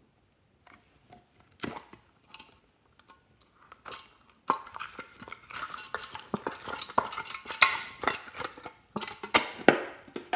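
Glossy slime being stirred with a utensil in a container, with wet clicks, pops and light clinks. It starts as scattered clicks and becomes a dense, continuous crackle about halfway through.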